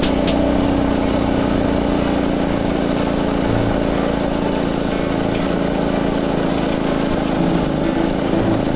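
Harbor Freight Predator 212cc single-cylinder four-stroke engine on a homemade motorized bicycle running steadily at cruising speed, over a haze of wind and road noise.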